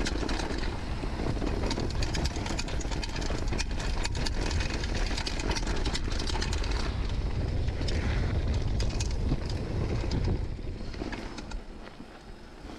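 Downhill mountain bike rolling fast down a dry dirt-and-gravel trail: steady rumble of tyres and wind on the camera microphone, with frequent clicks and rattles from the bike over the rough ground. The rumble falls away about ten seconds in as the bike slows.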